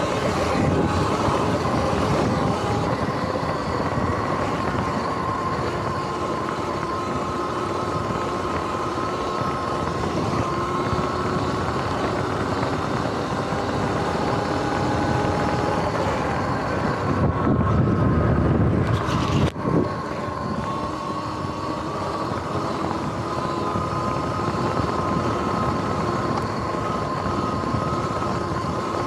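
Sur-Ron X electric dirt bike under way: a steady motor and drivetrain whine that drifts slowly up and down with speed, over wind and tyre noise. About seventeen seconds in, a heavier low rumble of wind buffeting swells for a couple of seconds and breaks off with a brief drop.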